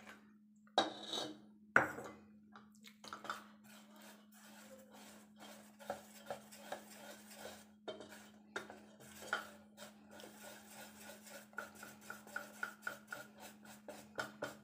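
Wire whisk beating semolina cake batter in a steel bowl, clinking and scraping against the metal in quick strokes, about three a second near the end. Two sharp knocks about a second in, as the milk cup meets the bowl.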